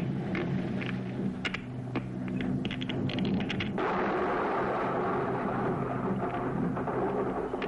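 Light aircraft's engine droning steadily inside the cabin while flying through turbulence, with scattered light clicks and rattles early on; about four seconds in a steady rushing noise comes in over the drone.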